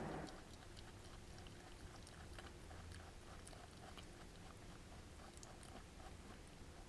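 Pet lop-eared rabbit chewing a piece of apple: a quick, even run of faint crunching clicks, with a brief louder noise at the very start.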